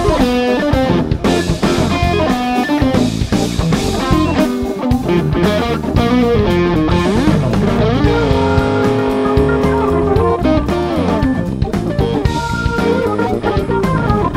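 Live instrumental jazz-rock band of electric guitar, Hammond-style organ, electric bass and drums playing, with the electric guitar to the fore in quick note runs. A long held chord about eight seconds in slides up into pitch and slides back down about two seconds later.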